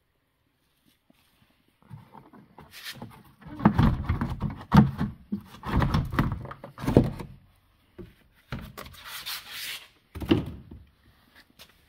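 A car's cloth-covered door trim panel being handled by hand: irregular thuds, knocks and rubbing that start about two seconds in, are loudest in the middle with a couple of sharp knocks, and die away near the end.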